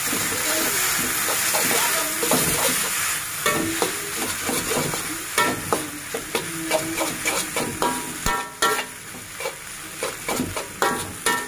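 Instant noodles frying in a metal wok: a steady sizzle, loudest in the first few seconds, with the repeated scraping and clacking of a spatula against the wok as the noodles are stirred and tossed.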